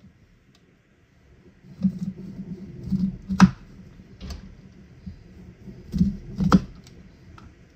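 Kitchen knife halving peeled lemons, the blade knocking through onto a plastic cutting mat. Several irregular knocks start about two seconds in, the sharpest two about three seconds apart.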